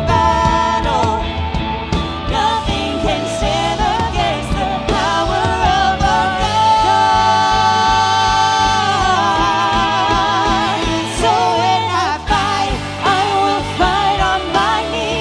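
Live contemporary worship band: a woman singing lead over piano and guitars, holding one long note that turns to vibrato about halfway through.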